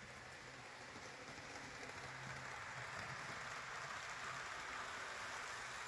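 HO-scale model train running on the track: the Bachmann EMD F7 locomotive pulling a long string of freight cars, with a steady rain-like rolling rattle of wheels on rail over a low hum. It grows slowly louder as the train comes nearer.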